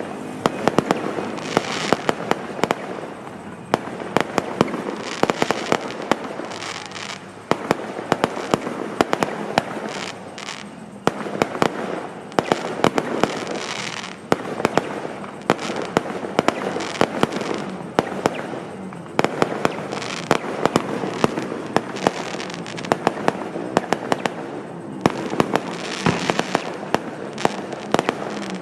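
Fireworks going off in a dense, continuous barrage: rapid sharp bangs over steady crackling, with no real pause.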